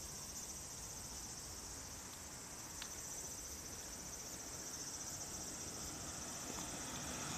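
A steady, high-pitched chorus of insects trilling in the evening. Near the end the rising noise of a car approaching along the road starts to come in under it.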